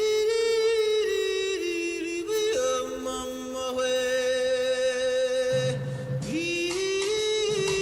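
Background music: a sung vocal line holding long notes that step up and down in pitch, with a lower note joining partway through.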